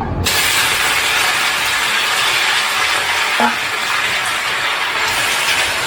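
Food dropped into hot oil in a camp pan, sizzling: a sudden loud hiss that then holds steady.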